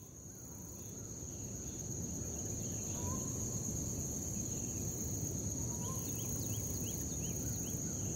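Night ambience of crickets: one steady high trill with scattered short chirps, fading in over the first couple of seconds above a low rumbling background.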